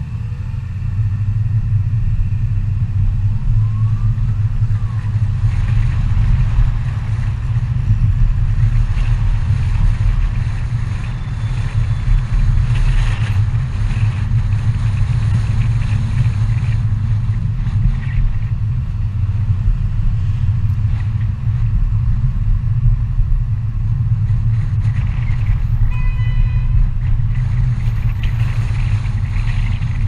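Steady low rumble of engine and road noise from inside the cabin of a moving car, with a brief pitched tone about four seconds before the end.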